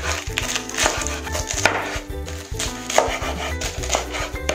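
Chef's knife chopping fresh cabbage on a wooden cutting board: irregular crisp strikes of the blade through the leaves onto the board, over background music.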